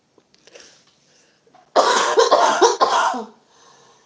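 A woman coughing: a fit of several coughs in quick succession starting about two seconds in, from a lingering cough.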